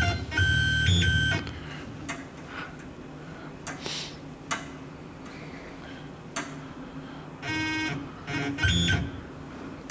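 Tormach 15L Slant-PRO CNC lathe's spindle motor run in three short bursts, each a steady electric whine over a low hum, with a few sharp clicks between them as the coaxial indicator is turned against the tool bore.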